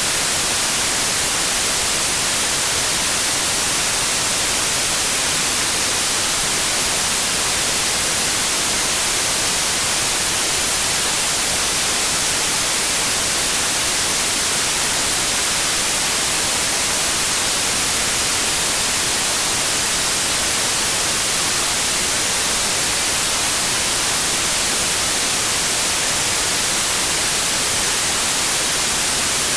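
Steady, unchanging electronic white noise, a hiss strongest in the high frequencies with no tones or rhythm.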